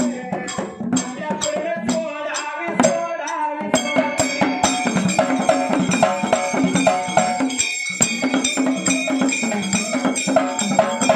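Dhangari ovi folk music: a dhol and hand percussion keep a steady beat of about two strokes a second. A steady high note and a repeating melodic figure join about four seconds in.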